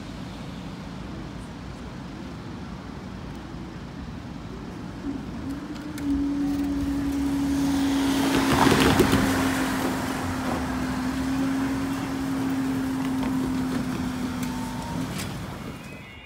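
Northern Class 195 diesel multiple unit passing over the level crossing. A steady engine hum builds from about six seconds in, is loudest around nine seconds, and fades away near the end.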